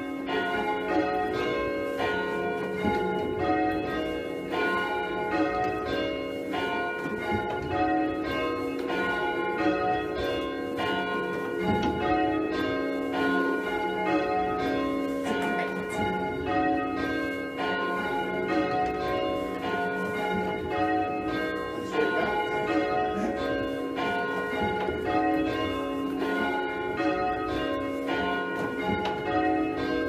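A ring of four church bells, cast by John Taylor & Co. of Loughborough in 1878 and tuned F, E-flat, C and F with a tenor of about 15 cwt, rung in rounds. The bells strike one after another in a steady, even, repeating sequence, each note ringing on under the next.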